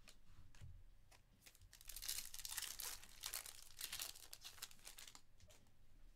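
Foil wrapper of a trading-card pack torn open and crumpled by hand. The crackling starts about a second and a half in and stops about five seconds in.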